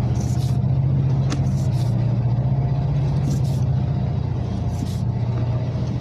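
A steady low mechanical hum, like an engine or motor running, with four brief high scratchy ticks spread through it.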